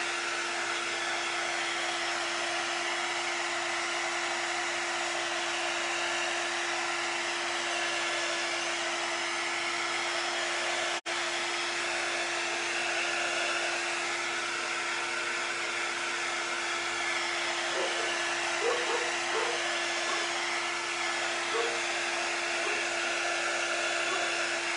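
Handheld craft heat tool blowing steadily with a constant hum, drying wet ink on a glass jar. The sound drops out for an instant about eleven seconds in.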